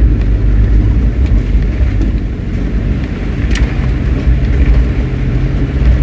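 Land Rover engine and drivetrain running under way, heard from inside the cab as a loud, steady low rumble. About halfway through there is a single sharp click, and the engine note rises slightly.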